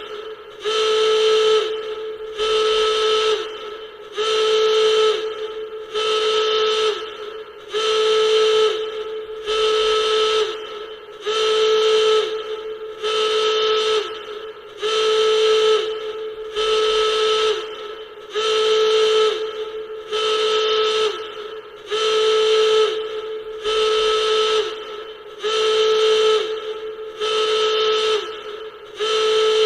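Klaxon alarm sounding in a steady repeating cycle: a loud, buzzy horn blast of about a second, repeated roughly every two seconds, each blast sagging in pitch as it cuts off.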